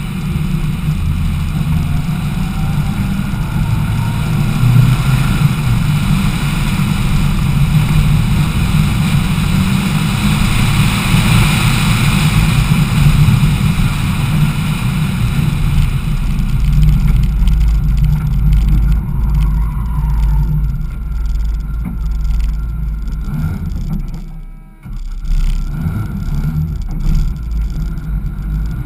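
Lancia Delta Integrale Evo rally car heard onboard at speed, its turbocharged four-cylinder engine running under load with a deep, steady drone. About 24 seconds in the engine sound drops away sharply for a moment, then picks back up.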